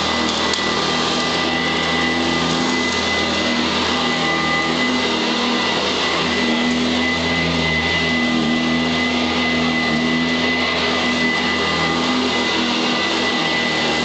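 Sanitaire SC886 commercial upright vacuum cleaner running steadily on carpet with a constant motor whine, pushed back and forth.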